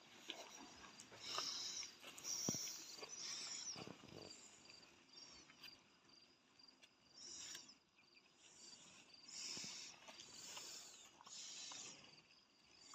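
Faint insects chirring in short high-pitched bursts about half a second long, repeating irregularly, with a faint steady high tone and a few soft knocks.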